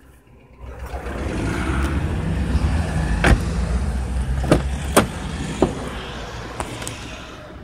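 The front door of a Renault Espace IV being opened from outside, with a few sharp clicks and knocks from the handle and latch. Under them runs a steady low rumble that sets in about half a second in.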